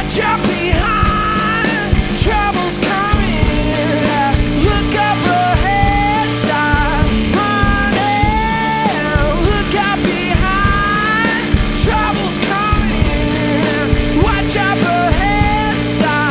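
Guitar-and-drums rock duo playing a song live in the studio: electric guitar and drum kit under a sung vocal line.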